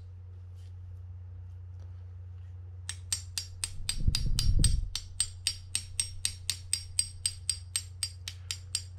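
Light, rapid hammer taps on a steel punch driving the pin out of a Penn 320GTi reel's brass main gear sleeve, about four taps a second with a short metallic ring to each, starting about three seconds in. The taps are kept gentle so as not to deform the end of the pin. A dull thud sounds about four seconds in.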